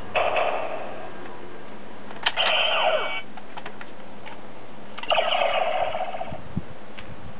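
Kamen Rider Decade DX Decadriver toy belt playing its electronic sound effects through its small speaker: three short bursts of about a second each, the second one preceded by a sharp click and carrying a falling sweep.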